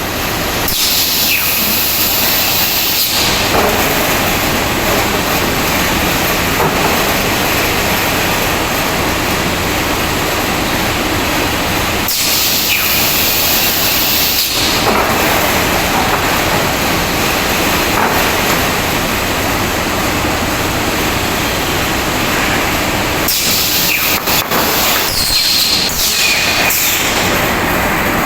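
Automatic plywood sanding machine line running loudly with a steady, dense mechanical noise. About every eleven seconds the sound turns brighter and hissier for two to three seconds.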